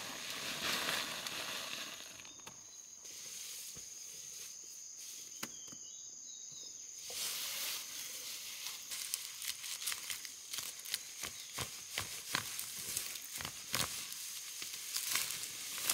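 A steady high insect drone over rustling noise, with a run of short sharp crackles starting about halfway through.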